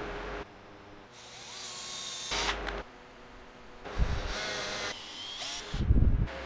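Power drill driving screws into a wooden block, running in several short bursts with the loudest near the end.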